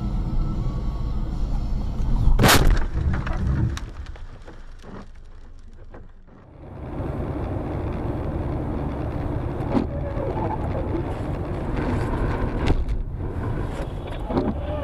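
A loud, sharp bang of a car collision about two and a half seconds in, picked up by a dashcam's microphone. After that comes steady tyre and engine rumble from inside a moving car, with a few small knocks.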